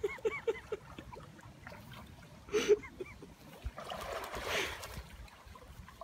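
Fast-flowing river water running and splashing around a swimming Jack Russell terrier. There is a brief louder sound about two and a half seconds in, and a longer stretch of hissing water noise around the four-second mark.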